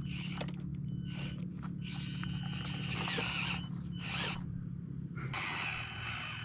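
Axial SCX24 micro RC crawler driving over rocks: its small electric motor and gears whine in short bursts as the throttle is worked, with tyres and chassis scraping on the rock.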